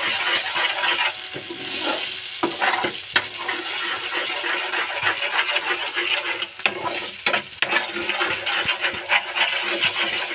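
Beaten eggs sizzling in hot oil with fried onion masala, while a spatula scrapes and clinks against the metal pan in irregular strokes as the mixture is stirred.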